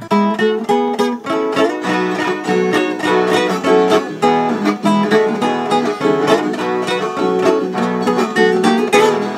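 Viola caipira (Brazilian ten-string folk guitar) played as a steady run of plucked notes.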